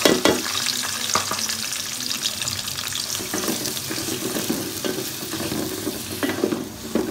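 Freshly added sliced onions sizzling in hot oil in an aluminium pot, with a wooden spatula scraping and clicking against the pot as they are stirred. The sizzle is strongest at first and eases a little toward the end.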